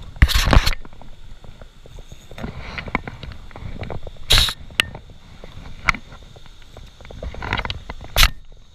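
Close handling noise from a spinning rod and reel being worked right against the camera: scattered clicks and knocks, with three short, loud brushing rubs, one near the start, one about halfway through and one near the end.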